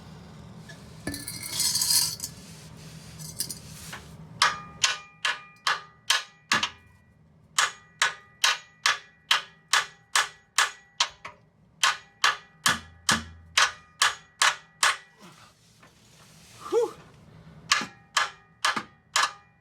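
Hammer striking a rusted, torch-heated exhaust bolt to drive it out: sharp metallic clanks with a ringing tone, about three a second, in several runs that start about four seconds in.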